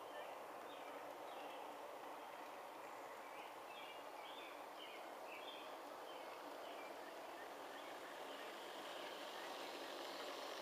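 Steady rolling noise of a long G-scale model freight train passing close by, its metal wheels running on the garden railway track, growing a little louder near the end. Faint bird chirps are heard in the first half.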